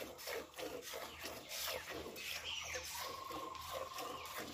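A cow being hand-milked: squirts of milk hit a stainless steel pail in a steady rhythm, about three a second. A steady high tone joins in about three seconds in.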